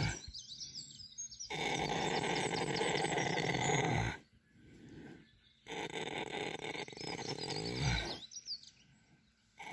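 A horse snoring in its sleep: two long snores of about two and a half seconds each, with a short, quieter breath between them. Birds chirp faintly in the background.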